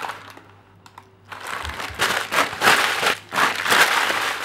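Brown paper bag being crumpled in the hand: crinkling and crackling in a run of bursts that starts about a second in and is loudest in the second half.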